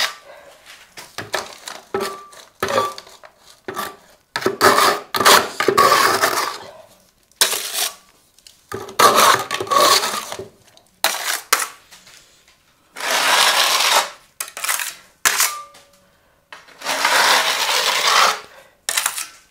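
Stainless-steel putty knife and wide smoothing blade scraping wet gypsum plaster across a wall in several long strokes, with short metallic clinks and taps between the strokes as plaster is loaded and the blades touch.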